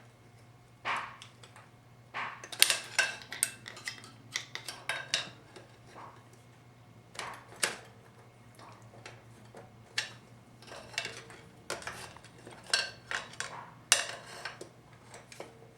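Irregular metal-on-metal clinks, taps and knocks from hand tools and 4L60E transmission parts being worked on, some ringing briefly, over a steady low hum.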